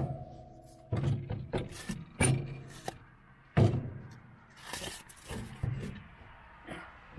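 Irregular knocks and clunks, about a dozen spread over several seconds, from a snow plow frame being jacked up and wooden blocks being set under it.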